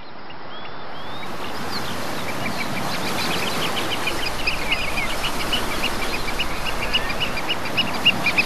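Many small birds chirping over a steady hiss, fading in from silence at the start; the chirping grows denser from about three seconds in.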